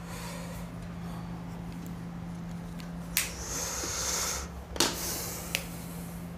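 Marker pen rubbing briefly on a whiteboard around the middle, with a few sharp clicks, over a steady low hum.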